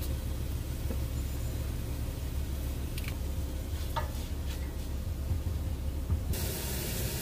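Steady low mechanical hum with a couple of light metallic clinks, a utensil against a steel pot, about three and four seconds in. A hiss comes in near the end.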